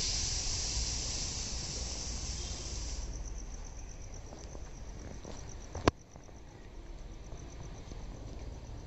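An insect chirring steadily in a high, finely pulsing tone. A louder hiss sits over it for the first three seconds, and a single sharp click comes about six seconds in.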